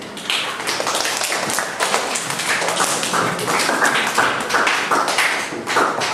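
A quick, irregular patter of taps and knocks, many per second.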